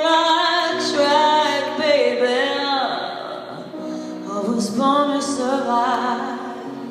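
Woman singing over held piano chords, her voice sliding and bending through drawn-out notes with vibrato; the singing eases off around the middle and comes back louder about four and a half seconds in.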